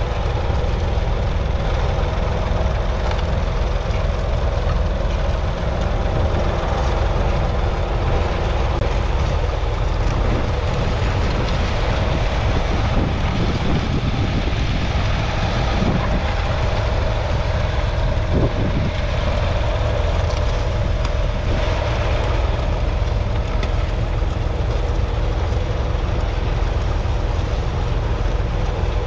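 David Brown 770 Selectamatic's 2.4-litre three-cylinder diesel engine running steadily under load, pulling a two-furrow mounted plough through the soil.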